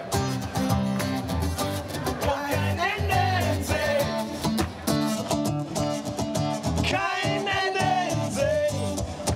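Live rock-pop song: a man singing over strummed guitar with a bass line and a steady beat.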